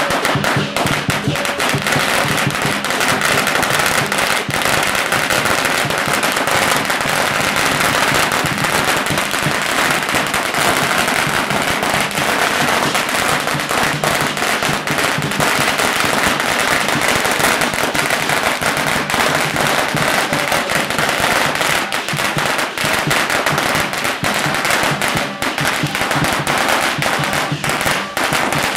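A long string of firecrackers going off in a dense, rapid, unbroken crackle of bangs.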